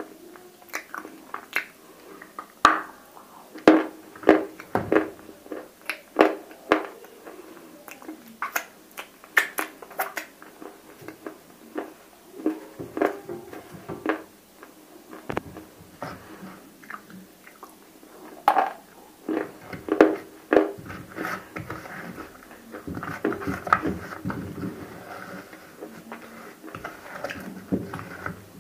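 Close-miked chewing and crunching of hard clay cubes coated in roasted clay paste: irregular sharp crunches, sometimes several a second, with quieter chewing between them.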